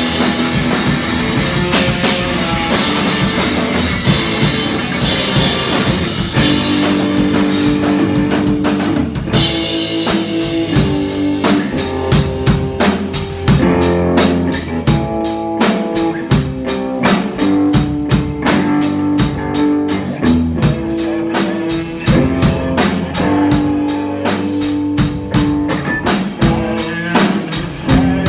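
A live rock band playing drums, electric guitar and bass. A dense cymbal wash thins out briefly about eight seconds in, and the band then settles into a steady, even drum beat under held guitar and bass notes.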